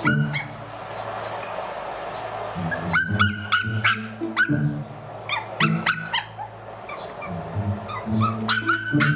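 Several puppies yipping and barking in short, high yelps, in clusters, over quiet background music.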